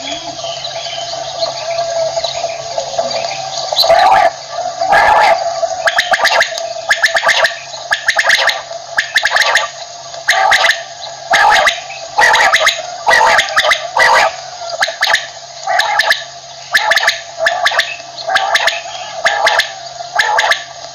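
Common quail calling over and over, about one call a second from about four seconds in, over a steady hum.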